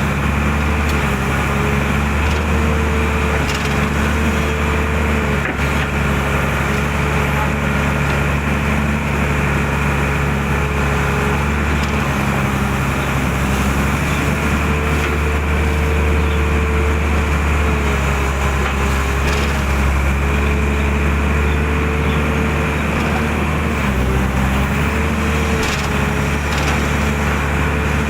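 Excavator's diesel engine running steadily under load, with a higher hydraulic whine that wavers and dips now and then as the arm and bucket work the ditch. A few faint knocks are heard.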